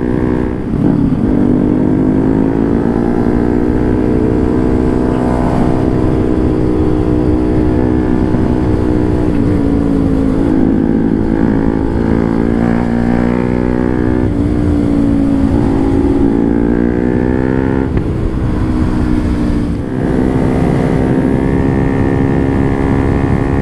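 Bajaj Pulsar NS200's single-cylinder engine under way, its note rising and falling several times with the throttle, over a haze of wind and road noise.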